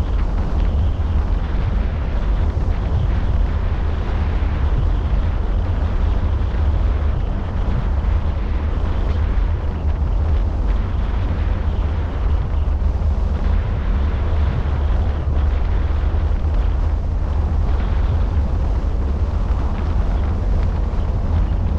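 Wind buffeting a roof-mounted camera's microphone on a moving car, a steady deep rumble with no letup.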